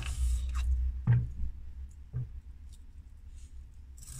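Craft knife slicing through a foam rod, a short scratchy cut near the start, followed by two light knocks on the wooden board about a second apart, over a low steady hum.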